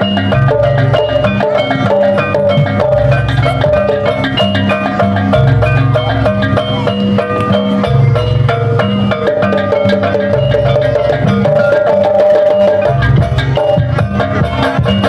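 Jaranan gamelan music: fast runs of struck metallophone notes over deep drum strokes.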